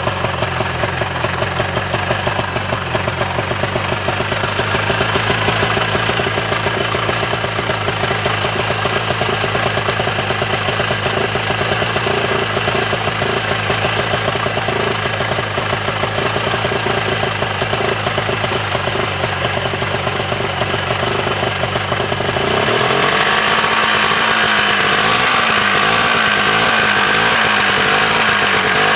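1987 Ski-Doo Safari 377 snowmobile's two-stroke engine running steadily, then about 22 seconds in its speed rises and wavers up and down. The engine is starved of fuel: in the owner's view the fuel line is drawing air and not filling the carburettor bowl.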